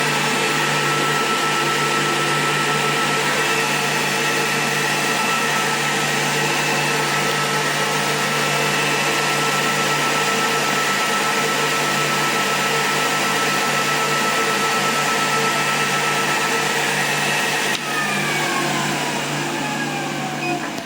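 Electric motor running steadily under test of a repaired Siemens control board, with a continuous whine over the motor noise. About 18 s in it is switched off and winds down, its whine falling steadily in pitch.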